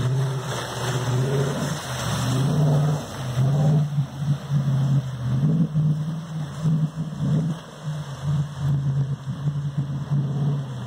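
Land Rover 4x4 engine working as the vehicle drives through deep muddy water on a trail, with water splashing in the first few seconds. Later the engine note rises and falls repeatedly as the throttle is worked through the mud.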